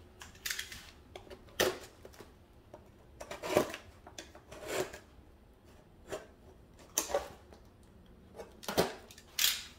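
Cardboard kit box being handled and opened, its tape being pulled free: irregular scrapes, rustles and sharp clicks, about eight in all.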